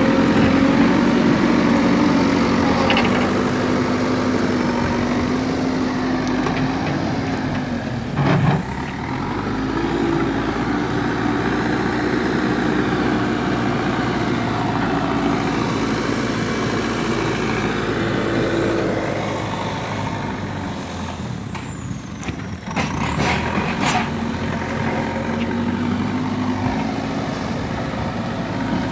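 JCB 3CX backhoe loader's diesel engine running under load while it scrapes and pushes soil with its front loader bucket, the engine note rising and falling as it works. There is a brief knock about a third of the way in and a short cluster of clicks about three-quarters through.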